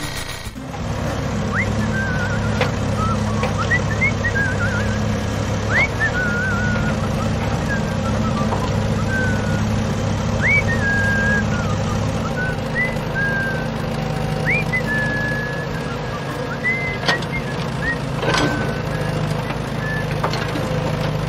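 A truck engine running steadily, its note changing about halfway through, with short high chirps or whistles heard over it every second or two.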